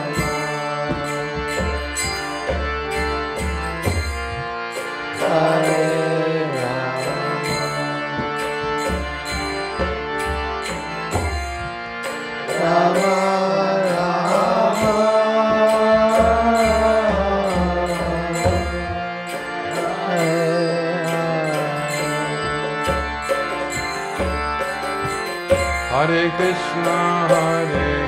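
Kirtan music: voices chanting a mantra melody over a sustained harmonium drone, with a hand drum and small hand cymbals keeping a steady beat. The singing swells loudest about halfway through.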